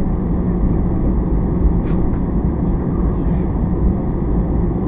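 Steady low rumble of an Airbus A320's jet engines at taxi power and the cabin air, heard from inside the passenger cabin, with a couple of faint clicks about two seconds in.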